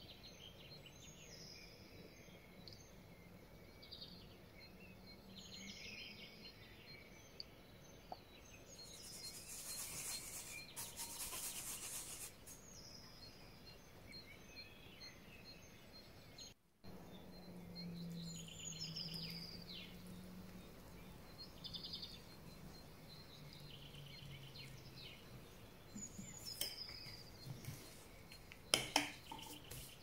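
Small birds chirping again and again in the background. About ten seconds in comes a few seconds of rasping, scraping kitchen work, and near the end a few light clinks.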